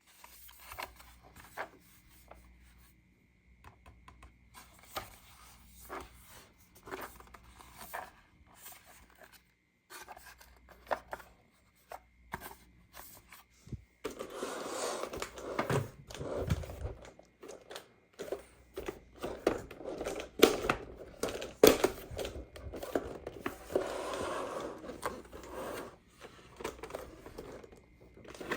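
Toy packaging being unpacked by hand: plastic and cardboard crinkling, rustling and tearing, with scattered small clicks and knocks. It grows busier and louder about halfway through.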